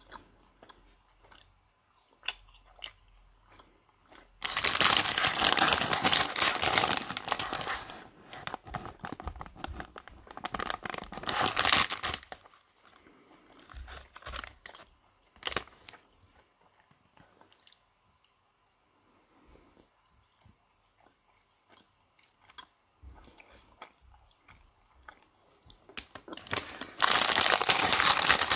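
Plastic sweet wrapper of a Haribo Trekdrop liquorice bag crinkling as it is handled. It comes in two long spells in the first half and again near the end, with small scattered rustles and clicks between.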